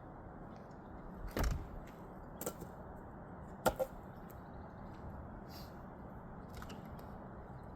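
A few sharp knocks over a steady low hiss: a heavier thud about a second and a half in, a lighter knock a second later, and a quick double knock a second after that.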